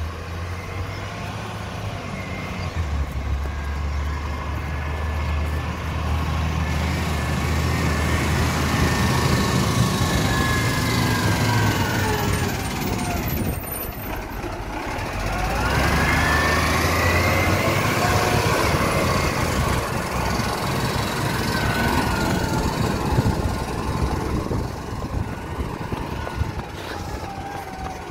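Iveco side-loader garbage truck driving past: its engine runs steadily as it approaches, it goes by close at about halfway, and its sound bends in pitch as it passes, then carries on as it moves away.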